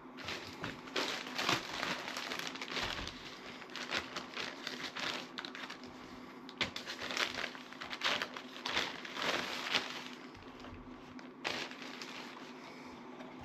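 Plastic packaging crinkling and rustling as it is handled, in irregular spells that die down about ten seconds in, with one more short crackle near the end.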